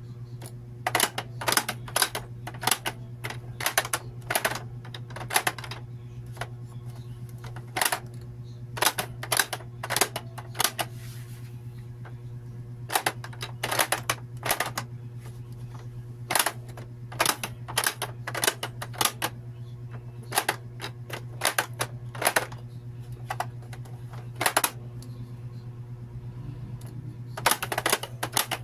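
Sharp plastic clicks and snaps of a pop-up animal toy being worked by hand, coming in irregular runs, over a steady low hum.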